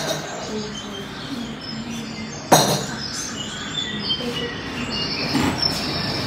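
Dishes and cups set down on a wooden table: a sharp knock at the start and another about two and a half seconds in. Short, scattered high chirps sound faintly between them.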